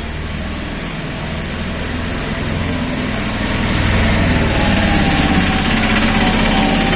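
A steady motor or engine hum that grows gradually louder over several seconds.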